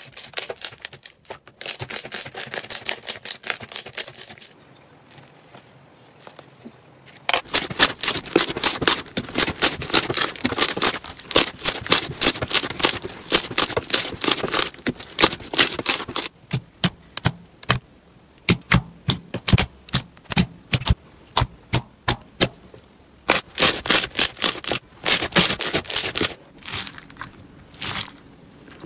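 Slime being squeezed and pressed by hand, with rapid clicking and crackling as air pockets pop. The clicks come in dense runs with sparser single snaps between them, and a quieter stretch a few seconds in.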